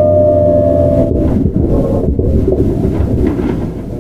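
Toyo GTO-VVVF inverter of a Keihan 9000 series electric train whining on one steady, slowly falling note, which cuts out about a second in. Then wheel and track rumble with rail-joint clatter and knocks takes over, gradually getting quieter.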